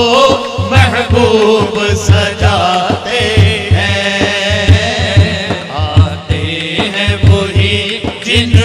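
Devotional naat singing: a man's voice holds and ornaments wavering notes over a steady beat on a frame drum.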